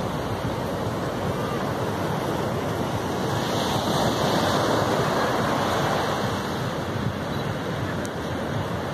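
Ocean surf breaking on a sandy beach: a steady rush of waves that swells loudest about four seconds in as a wave crashes and washes up the shore, then eases off.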